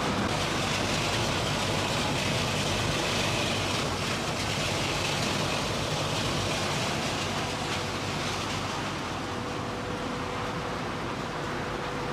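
Refrigerator-recycling crushing machinery running: a steady, even mechanical din with no distinct strokes. A faint steady hum comes in about two-thirds of the way through.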